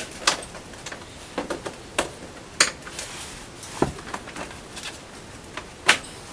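Scattered sharp clicks and light taps of hands working thermostat wire as it is fastened along a wall, with fainter ticks between them.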